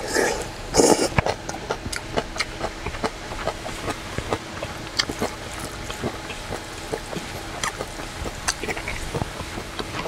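Eating sounds: a loud slurp of noodles about a second in, then chewing and small wet mouth sounds with scattered light clicks of wooden chopsticks against a steel bowl.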